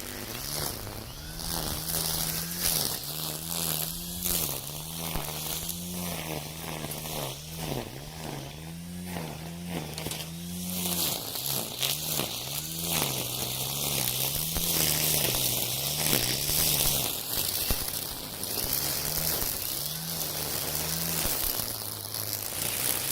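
Cordless Makita 40V brush cutter spinning Oregon Flexiblade nylon line through tall weeds. The motor's whine dips and recovers again and again as the line bites into the grass, over a steady hiss of line whipping through stems.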